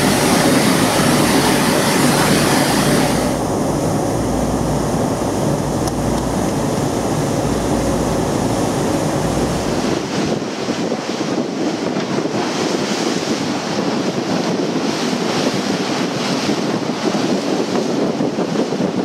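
Wind blowing on the microphone over the rush of choppy sea water around a moving boat. About ten seconds in the sound changes abruptly and the deep low rumble drops away.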